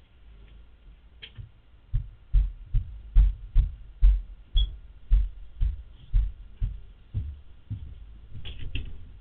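Footsteps on a floor: a steady walk of dull thuds, about two a second, starting about two seconds in and growing weaker toward the end.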